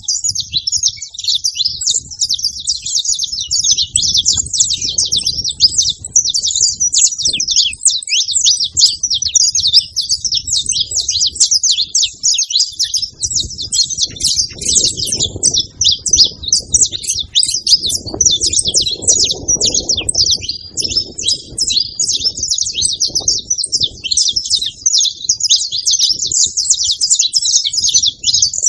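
Saffron finches chirping and singing without pause, many quick notes overlapping as from several birds at once. A faint low rumble runs underneath, swelling about halfway through.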